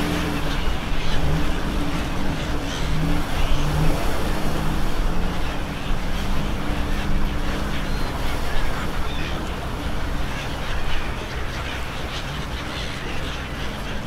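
A motor engine running, its pitch shifting up and down, fading out about halfway through, over a steady wash of outdoor noise.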